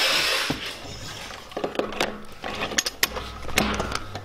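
A few irregular knocks and light clinks as a sewing machine servo motor and its bracket are handled on a wooden table, with a brief rustling scrape at the start.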